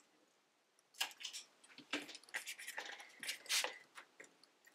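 Rattan reed rustling, creaking and clicking in irregular bursts as the flat reed lashing is handled and worked into the basket rim, starting about a second in.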